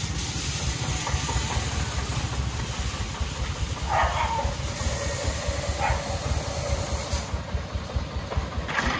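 Single-cylinder diesel engine of a three-wheeled công nông farm truck chugging at low speed while it manoeuvres, its pulses coming evenly, over a steady hiss. A brief higher tone sounds about four seconds in.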